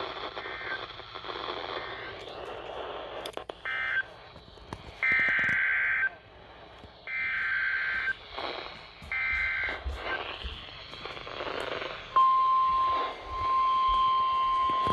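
Emergency Alert System broadcast tones over a radio receiver's hiss. Three raspy, roughly one-second bursts of SAME digital header data come about a second apart, marking the start of a new alert. About twelve seconds in, the steady single-pitched weather-radio warning tone starts and holds.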